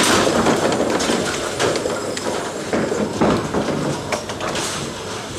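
Bowling alley din: bowling balls rumbling down the lanes and pins clattering, with a loud crash right at the start.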